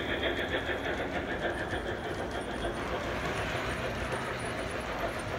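G scale model freight cars rolling along the track: a continuous low rumble of metal wheels on rail, with a rhythmic clatter that fades after about two and a half seconds.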